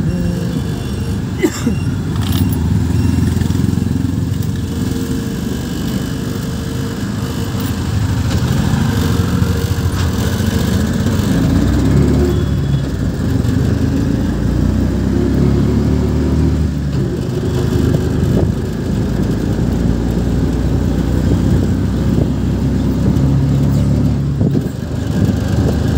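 Small engine of an auto-rickshaw running steadily while riding, heard from inside the open cab with road and wind noise, and a brief knock near the start.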